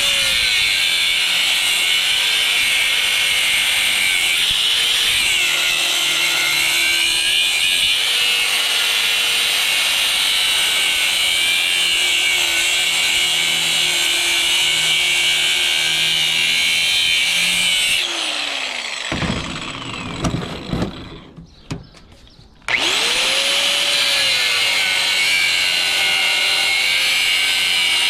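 Electric power cutting tool cutting into the steel shell of a scroll compressor, running steadily under load. It stops about 18 seconds in and winds down, followed by a few knocks and rattles. About 23 seconds in it spins up again and resumes cutting.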